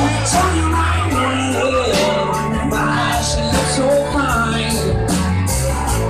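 Live rock band playing loudly: electric guitars over bass and a drum kit, with a cymbal struck about twice a second.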